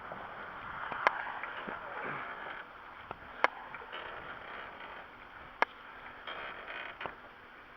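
Three sharp clicks about two seconds apart over a steady hiss of background noise.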